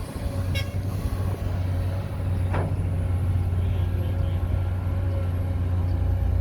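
Heavy machinery engine running steadily with a low drone, with a short sharp sound about half a second in and another brief one a couple of seconds later.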